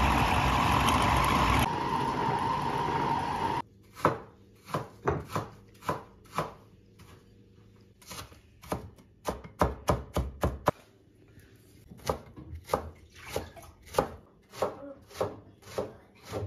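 A small electric food chopper runs steadily while mincing meat in its glass bowl, then cuts off sharply after about three and a half seconds. After that, a kitchen knife chops vegetables on a plastic cutting board in runs of strikes about two a second, with short pauses.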